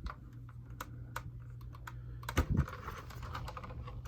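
Hard plastic toy-jet parts being handled and clipped together: scattered light clicks and taps, with a louder knock about two and a half seconds in.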